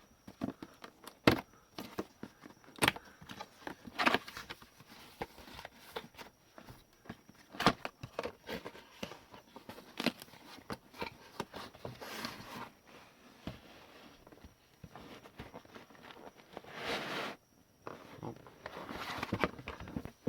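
Handling and unpacking noises: irregular sharp clicks and taps of parts and packaging, with a couple of short rustles.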